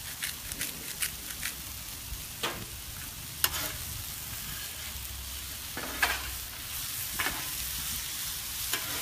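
Chicken pieces, zucchini and squash sizzling on a Blackstone steel flat-top griddle while metal spatulas scrape and toss them, making about five sharp scrapes and clanks over the steady sizzle.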